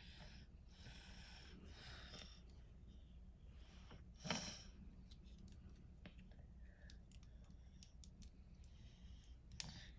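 Faint small clicks of plastic model kit parts being handled and pressed together, with one louder brief handling noise about four seconds in.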